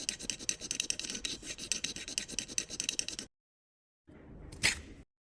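Rapid scratchy rasping, many strokes a second, that stops abruptly about three seconds in. After a short gap comes a brief stretch of low hum with one sharp click.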